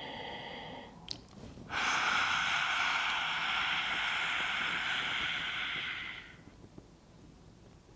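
A woman breathes in through her nose, then from just under two seconds in breathes out hard through a wide-open mouth with her tongue stretched out, a loud breathy 'haaa' lasting about four and a half seconds. This is a lion's breath (simhasana) exhale.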